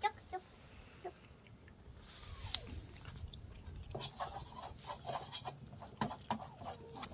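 Faint animal calls with scattered light clicks and taps.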